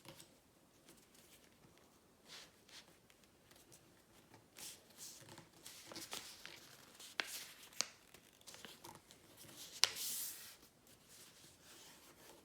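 A sheet of printer paper being flipped, folded and creased by hand: faint rustling with a few sharp crinkles and crackles in the second half.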